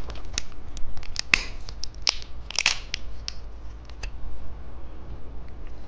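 Plastic candy packaging being handled: scattered sharp clicks and taps with short crinkling rustles, the longest about two and a half seconds in.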